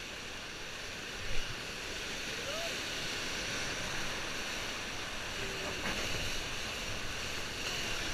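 Whitewater rapids rushing steadily around a paddle raft, slowly growing louder as the raft nears the rapid. A brief bump about a second in.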